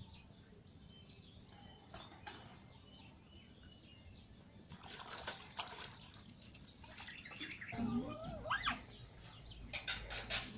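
Small birds chirping and twittering intermittently, joined in the last few seconds by louder rustling and a brief wavering, gliding cry.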